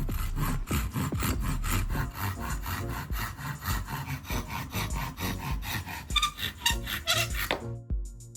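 Hand saw cutting through wood in quick, even strokes, about four a second, stopping shortly before the end.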